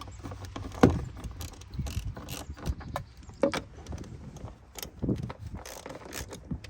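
Ratchet wrench with a 5/16 socket clicking in short, irregular runs, with a few sharper knocks, as the bolts holding the air box are backed out.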